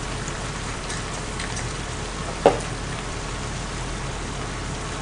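Shredded beef for jangjorim sizzling and simmering in a frying pan: a steady hiss, with one short sharp sound about halfway through.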